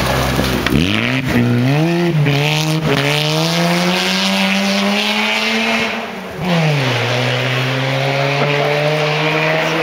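Mazda RX-7 rally car's rotary engine revving hard through a gravel hairpin. The pitch goes up and down several times in the first few seconds, climbs slowly, drops sharply about six seconds in, then holds steady.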